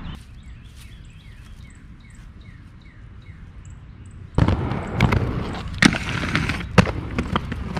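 A bird repeating a short falling chirp about three times a second over quiet park ambience. About halfway through, aggressive inline skates start rolling on concrete and grinding along a rough concrete ledge, with several sharp clacks as the skates hit and lock onto the ledge.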